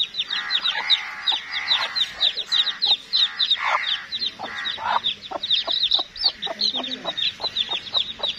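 A hen calling harshly and repeatedly over the constant high peeping of her chicks. The hen's calls thin out after about five seconds, leaving mostly the chicks' quick peeps.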